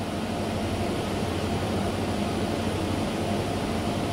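Steady rushing air noise over a low hum from a breath-analysis mass spectrometer setup, growing slightly louder over the first second.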